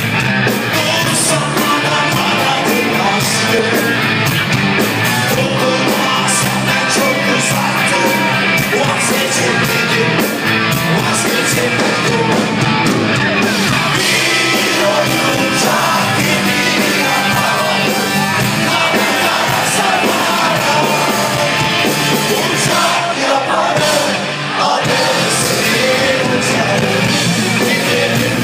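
A live rock band playing loudly, with a male singer singing into a microphone.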